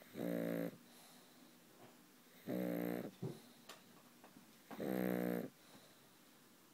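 Pug snoring in its sleep: three even, buzzing snores about half a second long, one every two and a half seconds or so.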